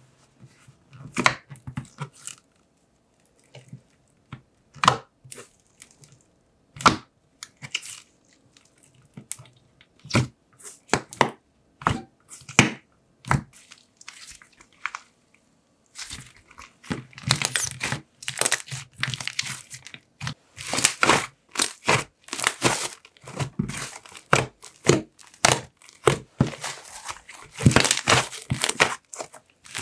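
Butter slime being poked, stretched and squeezed by hand, making sticky clicks and crackles. The clicks are scattered for about the first half, then turn into near-continuous crackling as the slime is worked and squeezed.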